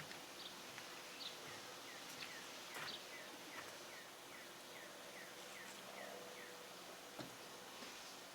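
Faint outdoor background with a small bird giving a quick run of short falling chirps, about three a second, and a few faint clicks.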